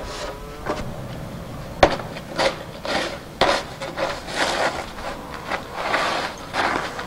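A snow shovel scraping along a driveway, pushing heavy snow in repeated strokes about two a second, after a single sharp click just under two seconds in.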